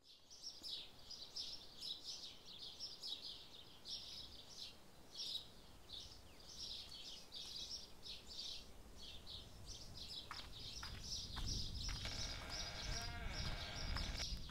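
Outdoor summer ambience of cicadas chirping in rapid, irregular high pulses. A low rumble and a faint droning hum join near the end.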